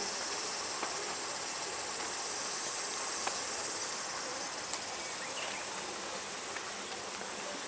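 Summer insects shrilling in a steady high-pitched chorus, easing a little in the second half. A single sharp click about two thirds of the way through.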